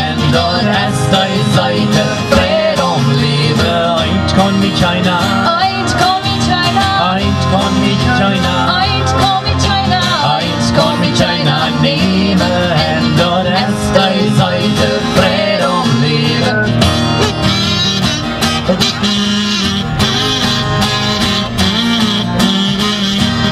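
Live country-style band playing an instrumental passage: acoustic guitars strumming steadily with a wavering melody line over them, no singing.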